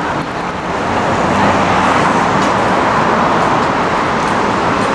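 Road traffic noise on a city street, a vehicle passing close: a broad rushing sound that swells over the first second and a half, then holds steady.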